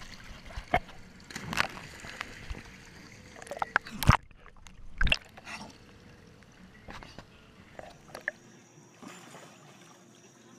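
Swimming-pool water sloshing and splashing close up as a dog paddles through it, with a spillway trickling into the pool. A run of sharp, irregular splashes in the first half, then quieter.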